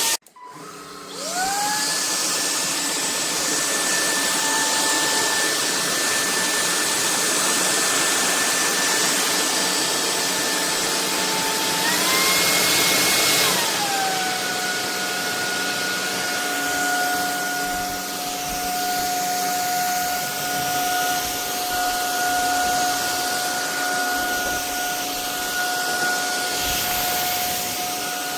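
Cordless stick vacuum's motor cutting out for a moment, then spinning back up with a rising whine and running steadily with a rushing hiss of air. About twelve seconds in, the whine rises in pitch as the motor speeds up, then drops a second and a half later to a lower steady whine at a slower speed.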